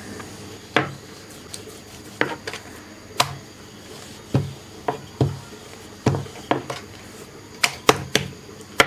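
A rolling pin knocking and thudding on a rolling board as paratha dough is rolled out, with irregular knocks about one or two a second.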